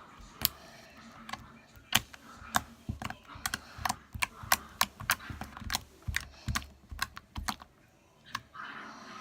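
Slime being squeezed and pressed by hand, giving irregular sharp clicks and pops, often several a second.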